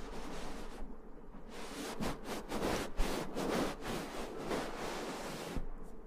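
Close-miked ASMR rustling: hands rubbing and brushing against something right at the microphone, an irregular run of soft scratchy strokes that thickens about a second and a half in and dies away near the end.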